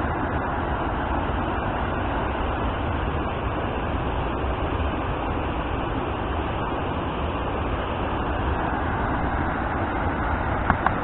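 Steady rush of water pouring over a small falls, with two brief clicks near the end.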